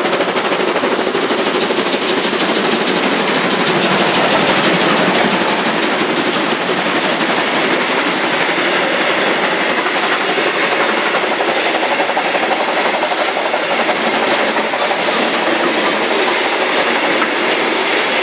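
A steam locomotive passing at speed with rapid exhaust beats, followed by the steady rumble and clickety-clack of heavily loaded log wagons rolling by on the rails.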